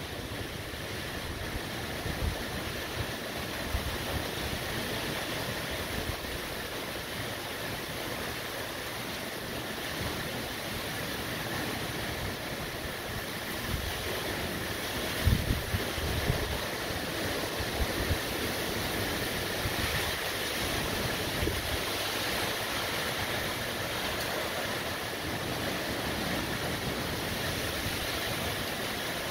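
Hurricane Beryl's wind and heavy rain: a steady rush of driving rain with gusts, and low buffeting of wind on the microphone, strongest about halfway through.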